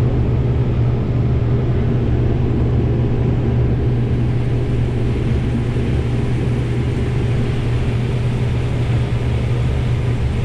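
Combine harvester running steadily while harvesting corn, a constant low hum with even machine noise.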